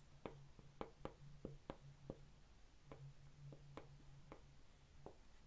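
Near silence: quiet room tone with a faint low hum that comes and goes and about a dozen soft, scattered clicks.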